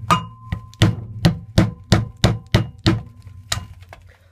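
A hammer tapping the rubber hub seal of a VW T3 Vanagon into the wheel hub: a quick, even run of strikes, about three a second, that stops about three and a half seconds in. The first strike leaves a brief ringing tone.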